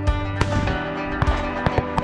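Background music with held notes, cut through by about half a dozen sharp cracks at uneven spacing.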